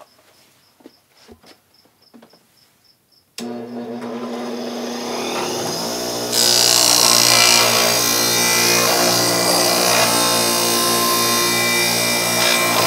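A few quiet footsteps, then a bench grinder switched on about a third of the way in, its motor humming steadily as it comes up to speed. About halfway through, a steel VW Beetle connecting rod is pressed against the wheel and the grinding becomes loud and hissy, taking weight off the heaviest rod to balance the set.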